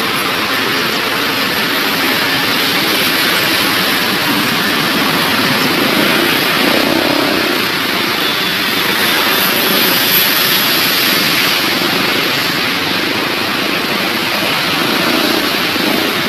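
Steady, even engine roar with no breaks or sharp knocks.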